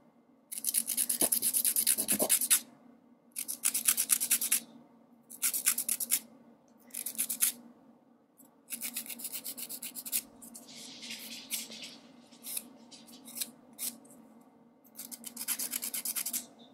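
Hand-held emery nail file rasping back and forth on a gel-coated fingernail, refining the tip. It comes in about seven bursts of quick strokes with short pauses between them.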